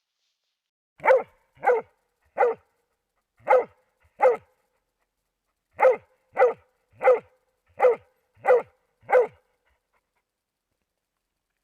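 Moose-hunting dog barking in a steady series of single sharp barks, five then six, about one every two-thirds of a second, the rhythm of a dog barking at bay.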